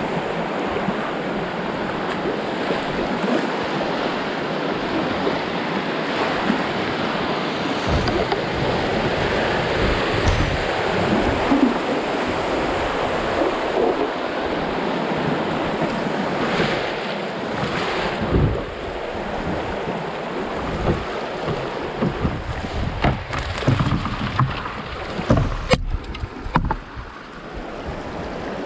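Fast creek current rushing steadily, with wind rumbling on the microphone in low gusts from about a third of the way in and one sharp knock near the end.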